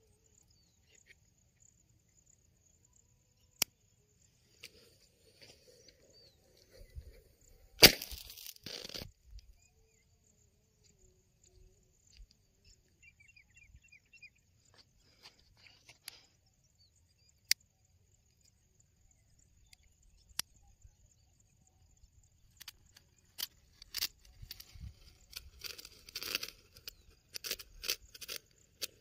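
A small firecracker going off inside a plastic pipe: one sharp bang about eight seconds in, followed by about a second of crackling. A few isolated sharp cracks come later, and a run of smaller crackles and pops fills the last several seconds.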